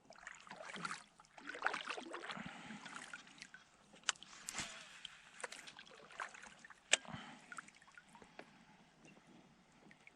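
Water trickling and splashing around a kayak, with scattered clicks and knocks.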